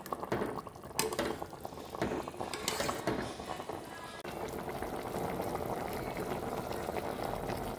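Chicken curry bubbling as it simmers in a pot, with a few sharp clicks in the first four seconds. About four seconds in, the bubbling turns steadier and a little louder.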